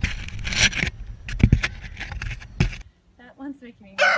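A giraffe's tongue and lips licking and knocking against the camera, many quick clicks and knocks over wind rumbling on the microphone. After a cut about three seconds in, a person's voice speaks briefly.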